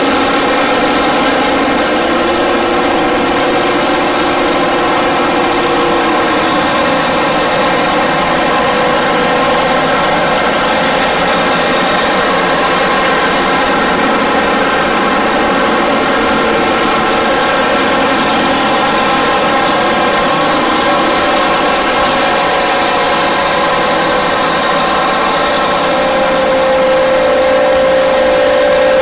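Detroit Diesel two-stroke engine of a Terex 82-80 bulldozer running hard as it pushes a scraper: a loud, steady, heavy diesel note made of many overlapping tones. Near the end it gets a little louder and the pitch climbs slightly.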